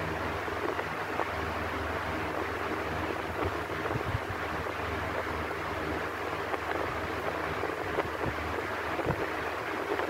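Electric fan running steadily: an even rush of air with a low motor hum underneath.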